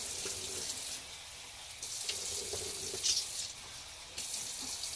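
Kitchen tap running into a sink as vegetables are rinsed under the stream. The sound dips twice, about one second in and again near the end, as the flow is broken.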